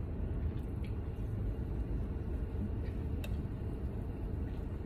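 Steady low rumble inside a car, with a couple of faint clicks.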